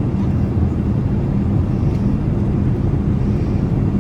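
Steady low-pitched cabin noise of a Boeing 787-8 airliner, an even hum with no breaks.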